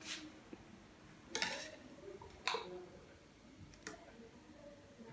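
A few light knocks and clinks of glassware, about four spread out, as drinking glasses and a blender jar are handled and set down on a countertop.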